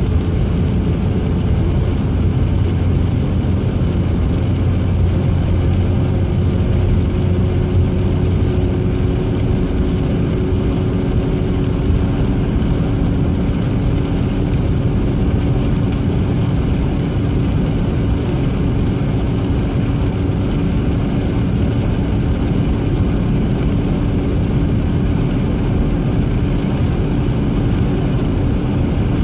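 Steady road and engine noise heard from inside a car cruising at motorway speed on wet asphalt, a continuous low rumble of tyres and engine. A low hum in the drone drops away about eight seconds in.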